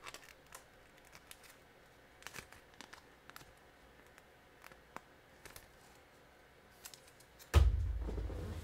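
Faint scattered clicks and crinkles of plastic trading-card sleeves being handled, then a sudden low thump about seven and a half seconds in that fades away slowly.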